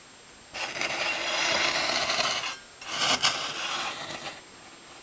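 Scraping, sliding rub on the table saw, in two strokes: one lasting about two seconds, then a shorter one of about a second and a half.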